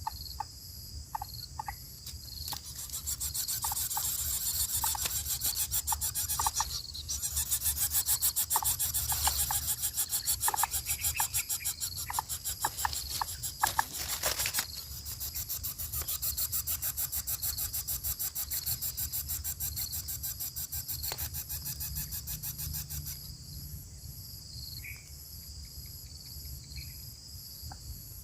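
Insect buzzing: a high, rapidly pulsing drone that comes in about two seconds in and cuts off sharply a few seconds before the end, with short chirps scattered through it.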